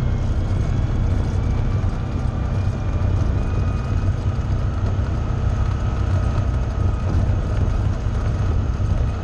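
Side-by-side UTV running at a steady pace along a gravel road: a deep, even engine and drivetrain rumble with a faint steady whine above it.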